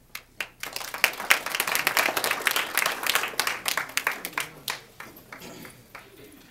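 A small audience applauding. Clapping starts just after the beginning, is densest between about one and four seconds in, and thins out to a few last claps by about five seconds.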